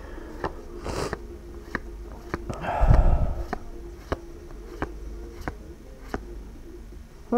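Pokémon trading cards being handled: a short rustle about a second in and a louder handling noise with a low thump around three seconds in. Under it runs a steady low hum and a faint click that repeats about every two-thirds of a second.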